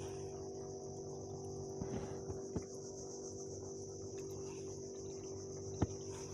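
Steady high-pitched insect chorus with a steady low hum beneath it, and a few faint clicks from handling a spinning rod and reel.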